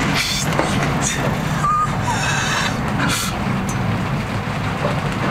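Storm noise aboard a ship heading into heavy seas: a steady low rumble under the wind, broken by short hissing rushes, about a third of a second in, around two seconds in and again near three seconds.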